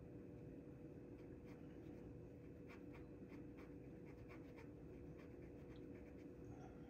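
Faint, scratchy scrubbing strokes on a .22 revolver cylinder as carbon fouling is worked off, a dozen or so irregular strokes over a steady low hum.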